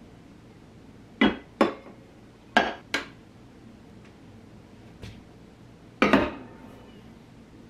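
Stainless-steel insulated water bottles being set down on a tabletop: two pairs of knocks about a second in, then one more knock with a short ring about six seconds in.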